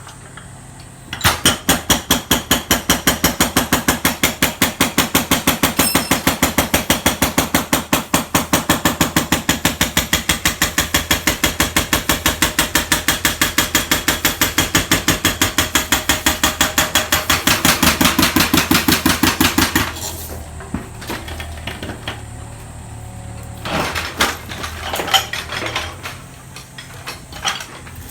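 Excavator-mounted hydraulic breaker hammering a hard floor in a fast, even run of blows. The hammering stops about 20 seconds in, and scattered knocks and clatter follow.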